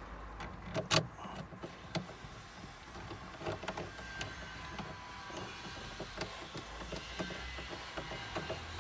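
Scattered light clicks and taps of plastic console parts and screws being handled and fitted back into a car's centre console, the sharpest click about a second in, over a steady low hum.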